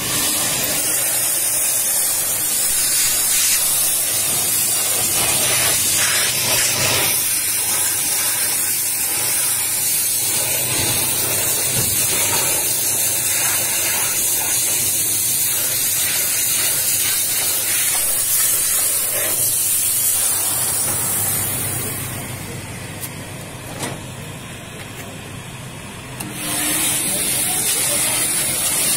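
Steam hissing steadily from the hand nozzle of a Scarpavapor shoe-steaming machine as it is played over and into a shoe. About three-quarters of the way through, the jet dies away for about four seconds, then comes back on.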